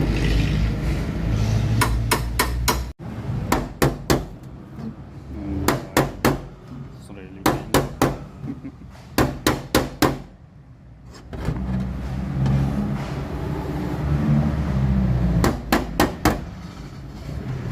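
Hammer knocking out a dent in a car door panel, struck in quick runs of three to five metal taps every second or two.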